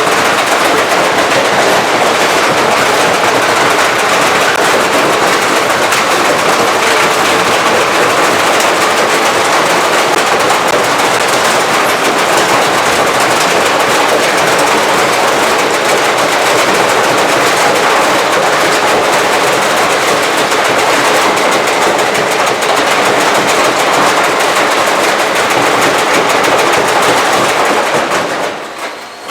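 Beko washing machine running a violent spin, rattling and banging in a rapid, continuous clatter as it shakes itself apart. The racket eases off just before the end.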